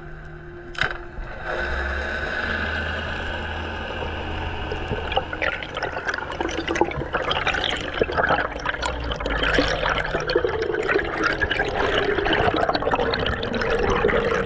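Underwater sound of rushing water and bubbles, with a single click about a second in, then from about five seconds in dense crackling and bubbling as a speared fish is pulled in and gripped by hand.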